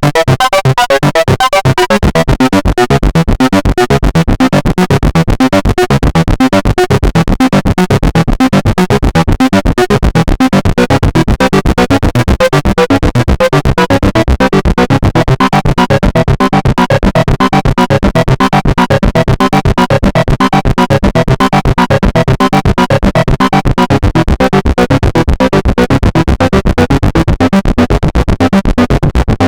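Behringer Model D analog monosynth playing a fast, evenly pulsing pattern of short notes.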